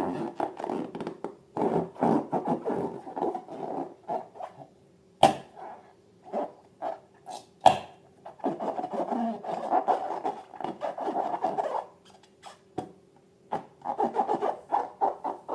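Rubber balloons and slime being handled, squeezed and rubbed in uneven bursts of a few seconds each, with two sharp snaps about five and eight seconds in.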